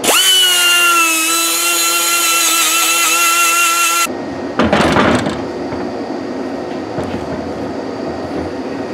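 Small high-speed grinder whining steadily as it scours rust from a pitted cast-iron intake manifold, its pitch dipping slightly just after it starts and then holding, until it cuts off abruptly about four seconds in. A brief ratcheting rattle follows about a second later.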